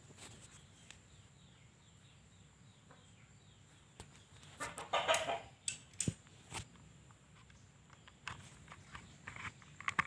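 A chicken clucking in short bursts, starting about four seconds in and again near the end, with a few sharp knocks in between.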